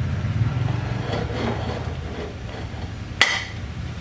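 A metal ladle knocks sharply against a wok once, about three seconds in, with a short ring, over a steady low hum.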